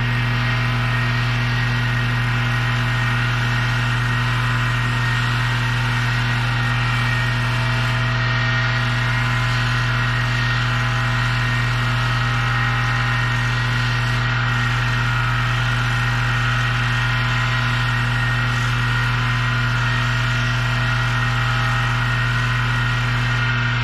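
Power-driven wire brush wheel running steadily, with a constant motor hum, as it scours rust off the metal fittings of a saw handle.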